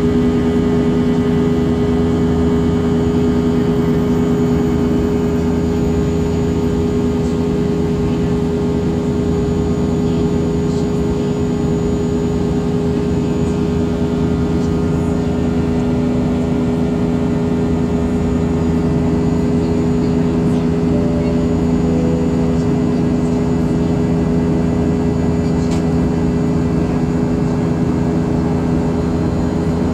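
Steady cabin drone of a Southwest Boeing 737 in flight, heard inside the passenger cabin: jet engines and rushing air, with a low hum that carries two steady tones.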